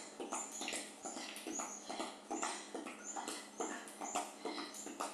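Trainers landing and scuffing on an exercise mat during side-to-side skipping: light, rhythmic footfalls about two a second, with short high squeaks.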